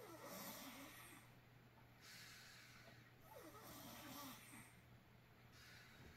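Faint snoring: two slow breaths about three seconds apart, each with a short wavering rasp.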